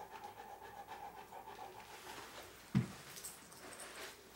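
Large dog panting steadily, with a single thud about three seconds in.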